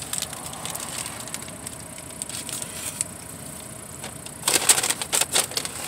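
Low steady background hum, then near the end a quick burst of crinkling and rustling from fast-food paper packaging being handled.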